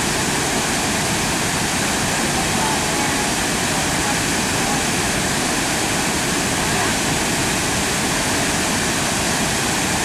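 Steady rush of a wide waterfall pouring over rock ledges, an even wash of falling water with no breaks.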